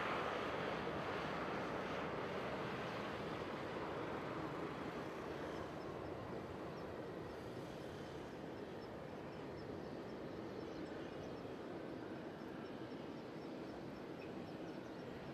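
Boeing 747-400F jet engines rumbling during the landing rollout, a steady roar that fades gradually as the aircraft moves away down the runway.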